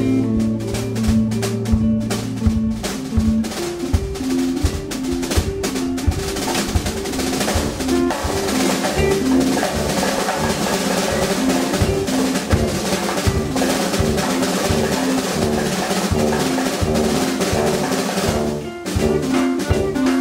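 A small live instrumental band of tuba, electric guitar and drum kit playing. The drums are prominent, with snare rolls over a repeating low riff, and the cymbals thicken from about six seconds in.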